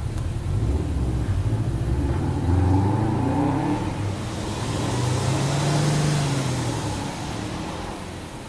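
Subaru Impreza 1.5i-S's EL15 1.5-litre flat-four exhaust note as the engine is blipped in neutral: the pitch climbs about two to three seconds in, then rises and falls again more slowly around the sixth second, and it drops back toward idle near the end.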